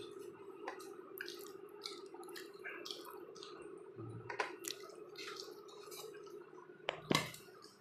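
Quiet eating sounds: scattered small clicks and wet squishes of hands tearing flatbread and scooping curry from a steel bowl, over a steady low hum, with a sharper knock about seven seconds in.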